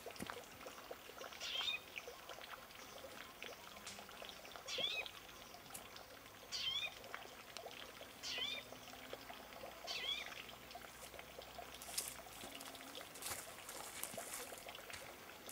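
A bird calling outdoors: a short, high, bending note repeated five times, every two seconds or so, with faint water sounds and a few light clicks near the end.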